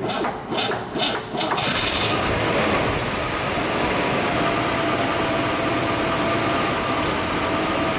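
1959 Cadillac's 390 cubic-inch V8 cranking over on the starter, about four even pulses, then catching about one and a half seconds in and running steadily.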